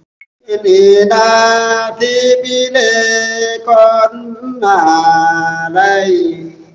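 Nùng folk singing: one voice sings long held, chant-like notes, bending in pitch between short phrases, starting about half a second in.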